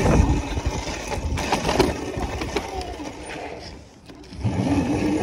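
Small motorbike engine running under way, with wind rushing on the microphone. The engine sound fades away shortly before four seconds in, then picks up again.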